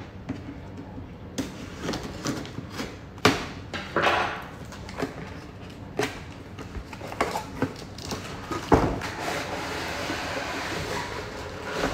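A cardboard box being opened by hand: sharp knocks and scraping of the cardboard flaps, then a steadier rustle of plastic wrapping in the last few seconds as the wrapped frying pan is slid out.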